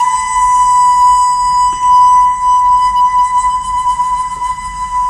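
A loud, high whistling tone held steadily on one pitch, sliding briefly up into the note as it starts.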